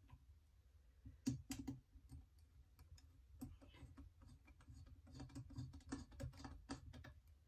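Faint, irregular small metal clicks and ticks as a hex-bit extension is turned by hand, running an action screw into a Tikka TAC A1 rifle's chassis; the clicks come more often in the second half.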